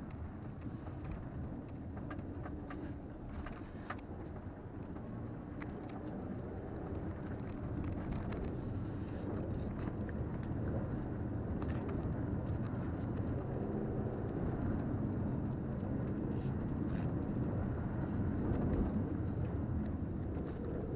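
Cabin sound of a 2020 Toyota RAV4 XLE driving over a dirt and sand wash: a steady low rumble of engine and tyres with scattered small knocks and rattles. It grows somewhat louder about halfway through.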